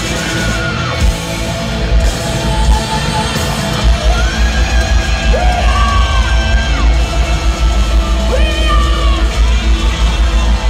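Live rock band playing loud: guitars, heavy drums and bass, with shouted vocals over it, heard from the audience in a large hall.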